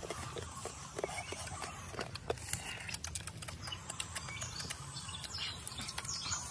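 Grilled crab shells cracking and snapping as they are broken open by hand, a run of small irregular clicks.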